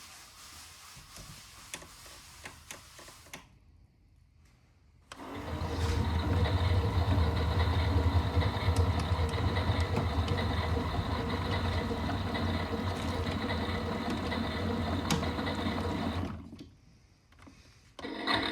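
Miele Novotronic W377 washing machine's drum motor turning the drum during the rinse, with a steady low hum and whine for about eleven seconds. It stops briefly and starts again near the end. Faint clicks come before the motor starts.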